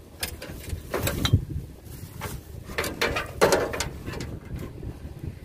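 Plastic shopping bags rustling and items being moved and knocked about on a table, in short irregular bursts.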